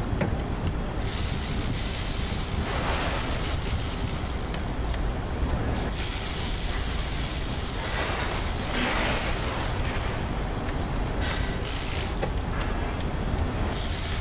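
Hand ratchet clicking in several runs as it runs down the mounting bolts of a new direct-injection high-pressure fuel pump on a turbocharged Honda four-cylinder engine.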